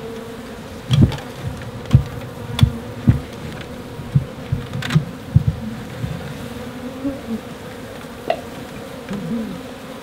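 A swarm of African honey bees buzzing in a steady hum around the open comb. The bees are agitated and flying. Short low thumps break in every second or so close to the microphone.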